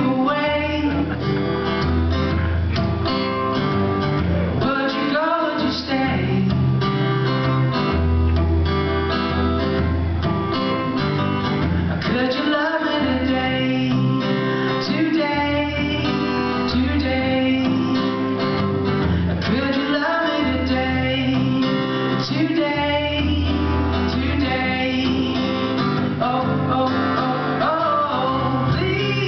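Live acoustic guitar strummed in steady chords, with a man singing over it.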